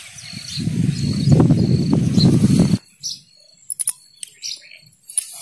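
Wind rumbling on the microphone with a cricket chirping in a steady rhythm; it cuts off suddenly about three seconds in. Then a few sharp clicks and clinks as roasted peanuts are poured from a steel bowl into a brass mortar.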